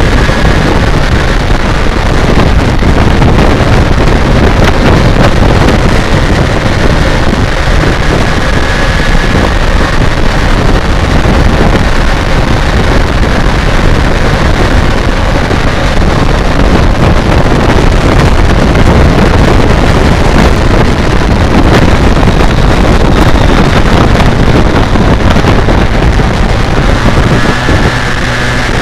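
Heavy wind rush on the microphone over the running inline-four engine of a BMW K1200R Sport at cruising speed. Near the end the engine note changes as the bike rides into a bend.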